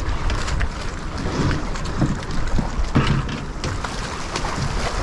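Wind buffeting the microphone, a steady rushing noise with a low rumble, and scattered light knocks and clicks.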